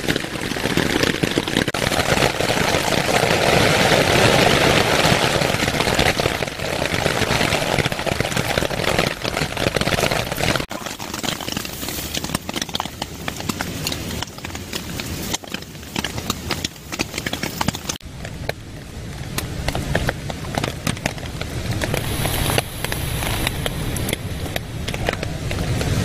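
Steady rain falling on a nylon tarp and tent, heavy for the first ten seconds or so; after a sudden cut it goes on softer, with scattered small clicks and rustles of things being handled in the tent.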